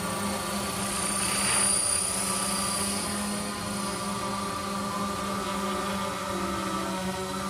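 Quadcopter making a steady helicopter-like whirring, with a high whine that swells about two seconds in.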